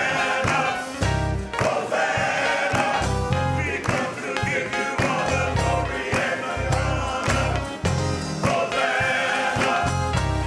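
Gospel song with a choir singing over a band, held bass notes coming and going under the voices.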